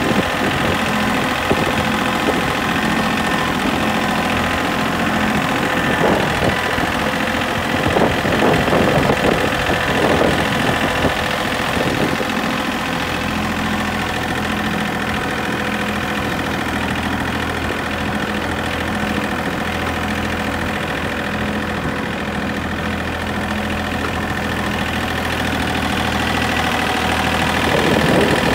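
A vehicle's engine running steadily as it drives along a farm path, with rattling and knocking from the ride over bumps for a few seconds starting about six seconds in, and again near the end.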